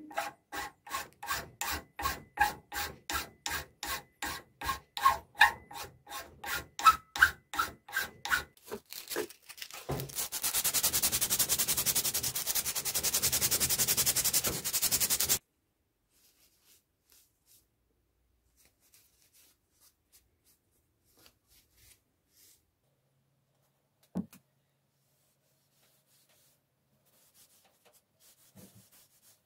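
Hand file rasping back and forth across the end grain of the wooden handle and wedge in a splitting maul's eye, about two and a half strokes a second for some nine seconds. Then about five seconds of steady, continuous sanding of the same spot. After that there are only a few faint handling clicks.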